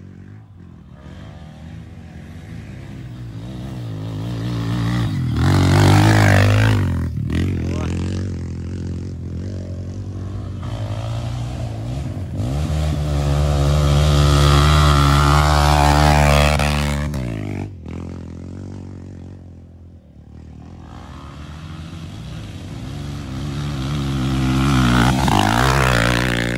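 Three off-road dirt bikes climbing a hill one after another, each engine revving hard as it comes past, loudest about six seconds in, in the middle and near the end.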